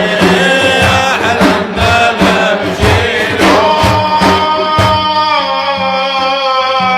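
Devotional chanting with frame-drum beats: sung phrases over steady drum strokes, then from about halfway the voice holds one long note as the drumming stops.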